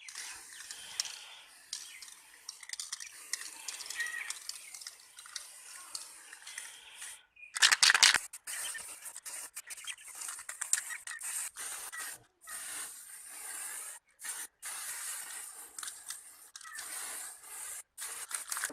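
Hand work on old fan parts: scraping and rubbing, with many small clicks, heard in short stretches that cut off suddenly. About eight seconds in there is a short loud hiss.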